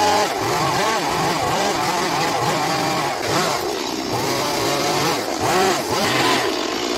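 Petrol chainsaw carving into a wooden log, its engine speed rising and falling over and over as the chain bites and is eased off.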